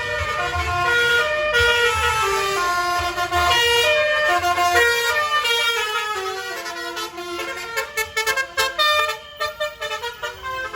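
Telolet bus horn, a multi-tone musical horn, playing a stepping melody of several notes at once over a low engine rumble, with a quick run of short blasts near the end.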